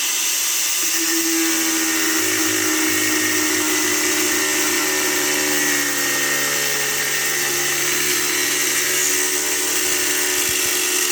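Power grinder running steadily under load, cutting through a deer antler to split it into halves for a knife handle.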